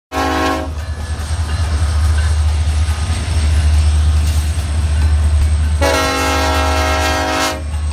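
Union Pacific EMD diesel locomotives passing close by, their engines a steady heavy low rumble. The multi-chime air horn gives a short blast at the very start and a longer blast of about a second and a half near the end.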